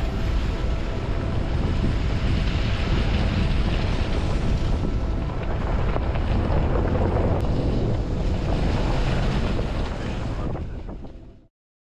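Strong wind buffeting the microphone, a steady loud rush with heavy low rumble, that fades out in the last second and leaves silence.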